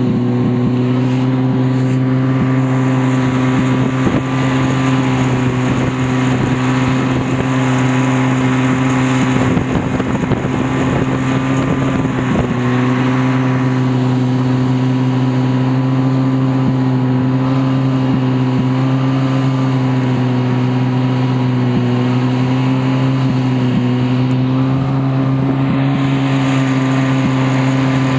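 Snowmobile engine running steadily at one even pitch, heard close behind it from a towed sled, with a constant rush of snow and wind.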